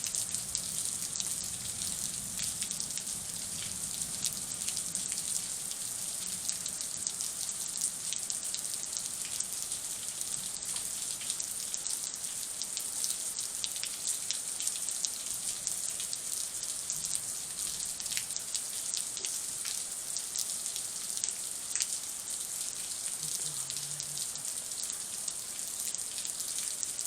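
Steady thunderstorm rain falling, with a continuous hiss and many individual drops striking close by.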